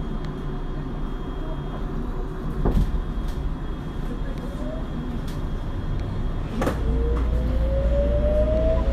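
Tokyo Metro 02 series subway car at a standstill: the doors thud shut, then about two-thirds of the way in a jolt as the train starts off, followed by the traction motors' rising whine over a growing low rumble as it accelerates.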